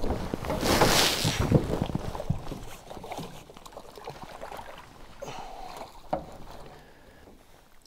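Knocks and rustling of gear being handled in a small boat, with a loud rushing noise about a second in and one sharper knock near six seconds.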